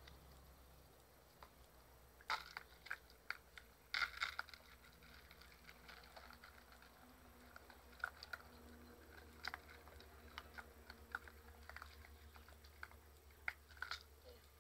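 Puppies crunching and chewing crisp kerupuk crackers fed to them by hand: irregular sharp crunches, sometimes in quick clusters, starting a couple of seconds in.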